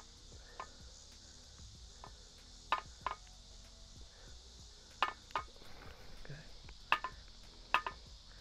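Cast iron pie iron clinking as it is handled over the fire, about eight sharp metallic clinks, several in quick pairs, each ringing briefly at the same pitch.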